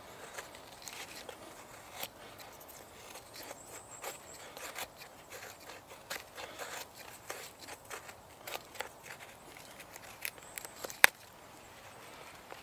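A knife blade shaving curls off a split wooden stick in repeated short, irregular scraping strokes. About eleven seconds in there is one sharp click, louder than the rest.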